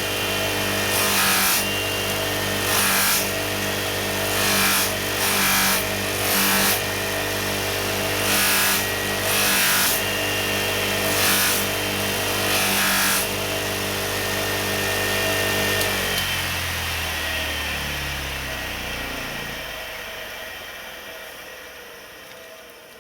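Bench grinder fitted with a polishing mop running steadily, with about ten short bursts of rushing noise as a metal part is pressed against the spinning mop. About sixteen seconds in the motor is switched off and winds down, its hum falling in pitch and fading away.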